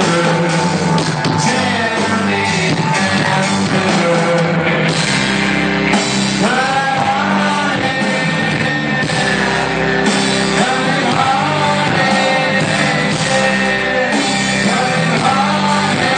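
Live rock band playing: a male lead vocal sung over electric guitars and bass guitar, at a loud, steady level.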